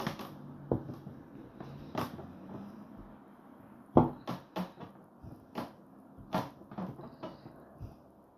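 Rolling pin knocking and tapping on the worktop as dough is rolled out: about ten short, irregular knocks, the loudest about halfway through.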